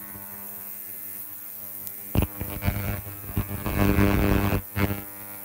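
Ultrasonic cleaner running with a circuit board soaking in its tank: a steady electrical buzzing hum. It is softer at first, there is a sharp click about two seconds in, and then it is louder for a couple of seconds before dropping back.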